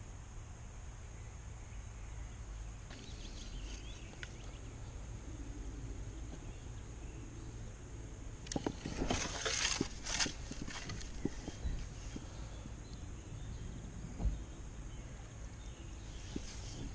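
Water splashing at the surface as a hooked fish thrashes near the landing net, several sharp splashes over about two seconds past the middle, over a steady low background rumble.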